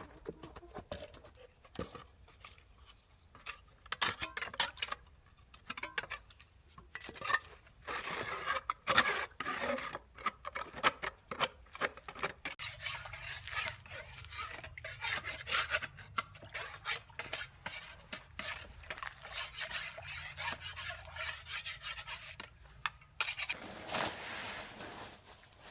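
Hard objects clattering and scraping: an irregular string of knocks and rubbing, with a low steady hum underneath through the middle of the stretch.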